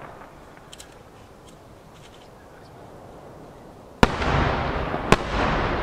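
A pair of 12-inch aerial firework shells bursting: after a few faint crackles, two sharp booms come about a second apart, each followed by a long rolling rumble.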